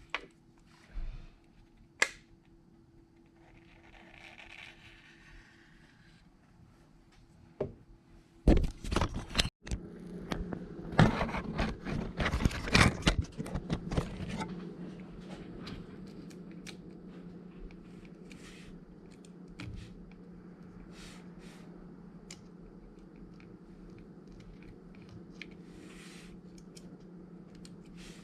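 Small hand tools clicking and scraping against phone parts during a repair, sparse at first and then a dense, loud run of clicks and scrapes in the middle. After that a steady low hum sets in, with a few light ticks over it.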